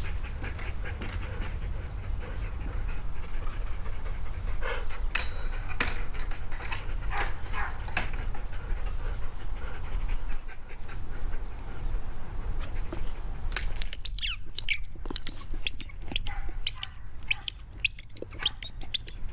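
A large dog panting. From about two-thirds of the way in it chews a red rubber ball, giving a quick run of sharp squeaks and clicks.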